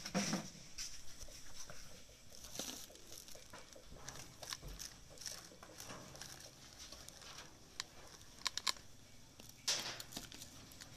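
Faint background with a steady high-pitched drone, scattered rustling and a few sharp clicks near the end.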